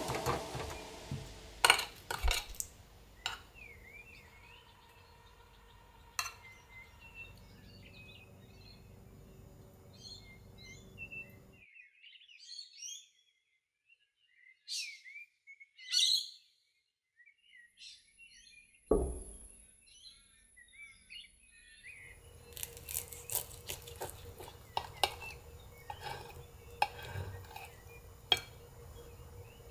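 Small birds chirping at intervals, with occasional faint clinks of plate and cutlery and a single soft thump about two-thirds of the way through.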